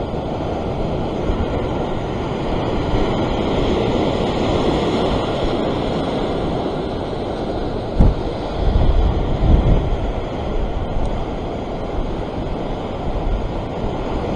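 Ocean surf washing and breaking over rocks in a steady rush that swells and ebbs, with wind buffeting the microphone. A single sharp knock comes a little past halfway through.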